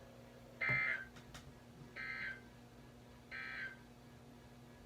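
Three short bursts of screechy Emergency Alert System (SAME) digital data tones, about a second apart, the first the loudest: the end-of-message signal that closes a NOAA Weather Radio weekly test broadcast. A faint steady hum lies underneath.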